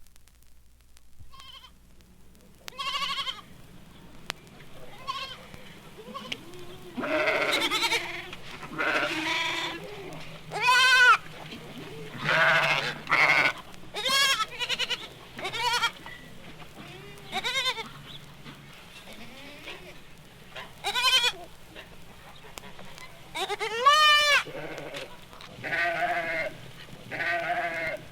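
Goats bleating: a long run of separate quavering calls of varying pitch, some overlapping. The calls begin a few seconds in and continue throughout, over a faint low hum.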